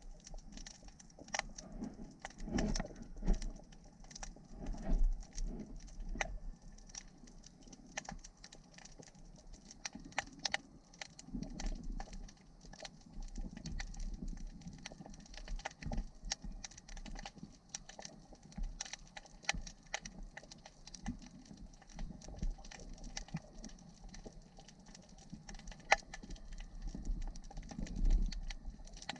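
Underwater sound picked up by a camera in its housing: an uneven low rumble of moving water with many scattered sharp clicks and crackles.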